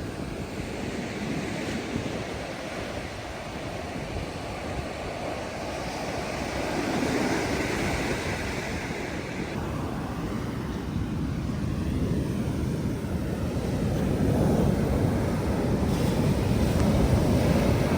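Atlantic Ocean surf breaking and washing on a beach, swelling and ebbing in slow waves, with wind rumbling on the microphone.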